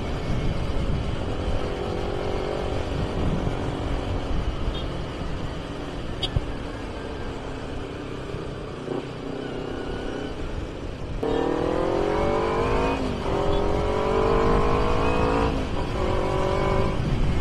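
Kawasaki Ninja 250R parallel-twin engine through an aftermarket AHM carbon racing exhaust, ridden under way. It holds a fairly steady note at first, then accelerates hard in the second half, the pitch climbing and dropping back twice as it shifts up, over a steady wind rush.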